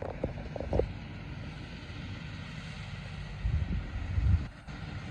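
Tractor and hay baler running: a steady low rumble with a few heavier knocks, some about a second in and a cluster around four seconds in.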